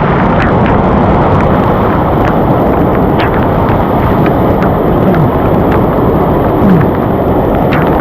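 Loud, steady roar of rushing mountain-stream water, a cascade close to the microphone.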